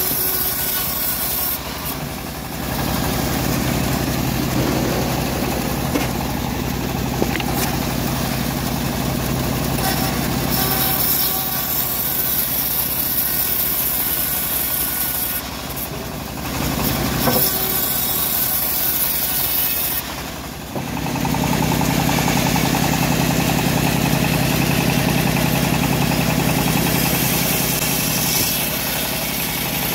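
Homemade engine-powered bandsaw mill running steadily while its blade cuts through teak. The steady drone dips briefly a few times, then sits fuller and lower after about two-thirds of the way through.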